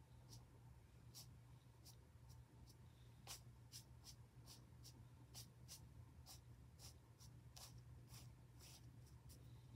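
Faint scratchy swishes of a Chinese ink brush dabbed and dragged across paper in short irregular strokes, about two or three a second, over a low steady hum.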